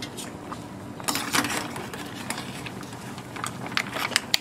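A stainless steel pot of mussels boiling on an electric hot plate, with scattered light clicks and clinks of shells and metal against the pot over a steady low hum. The clicks bunch up about a second in and again near the end.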